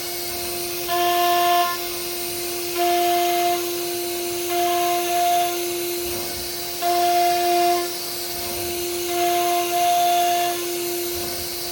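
CNC router spindle whining at a steady high pitch while carving wood, swelling louder for just under a second about every two seconds as the bit bites into the wood on each pass.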